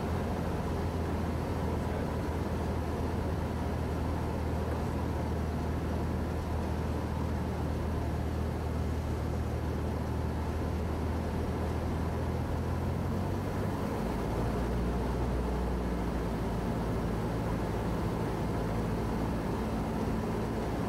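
Cabin sound of a Cessna 172S in flight: its 180 hp four-cylinder engine and propeller running steadily under wind noise. The engine note changes about two-thirds of the way through.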